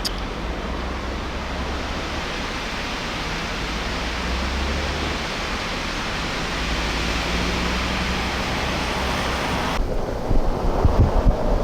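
Strong arctic outflow wind rushing in a steady roar of blowing snow and air. About ten seconds in it turns to heavy, uneven wind buffeting on the microphone.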